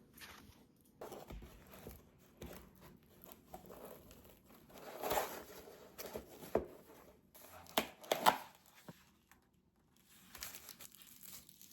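Packaging being handled and unwrapped: irregular crinkling and tearing rustles, with louder crackling bursts about five and about eight seconds in.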